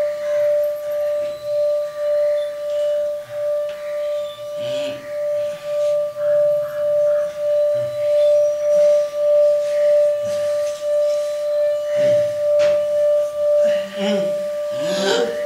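A singing bowl's sustained ringing tone, one steady pitch that pulses about twice a second. A short human vocal sound, like a moan, comes in near the end.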